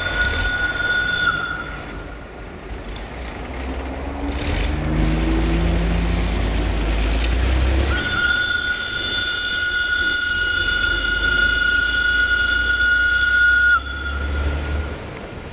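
Sulzer-engined CFR Class 60 (060-DA) diesel-electric locomotive hauling a freight train slowly, its engine rumbling low and rising in pitch for a few seconds. A high steady whistling tone sounds at the start, fades out after about a second, returns about halfway through for some six seconds, then dips in pitch and cuts off near the end.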